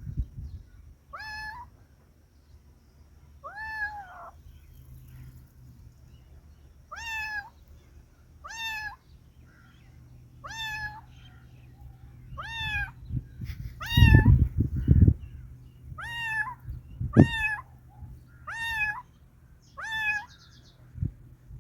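A cat meowing over and over: about eleven short meows, one every second or two, each dropping slightly in pitch at the end. A few low thumps come around the middle.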